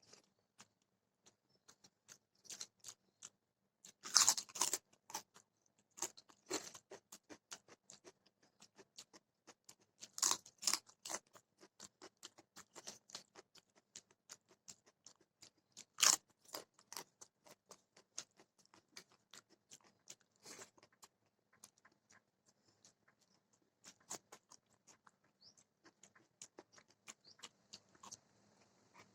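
Close-up chewing and crunching of food, many short crisp clicks from the mouth, with louder crunchy bites about four, ten and sixteen seconds in.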